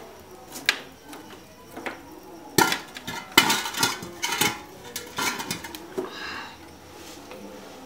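Metal cooking pot clanking and scraping as it is handled and set down on a charcoal stove: a couple of single knocks, then a run of clatters in the middle, and a short scrape near the end.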